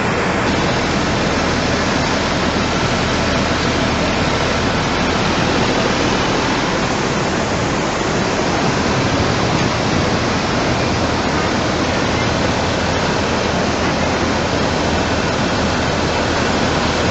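Fast-flowing floodwater rushing by, a loud steady wash of noise.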